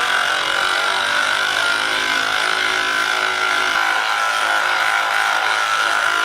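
Electric massage device running steadily over the patient's back muscles, its motor giving an even whine.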